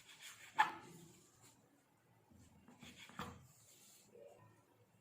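Knife cutting the crusts off slices of bread: a few short scraping cuts, the sharpest about half a second in and a cluster around three seconds in.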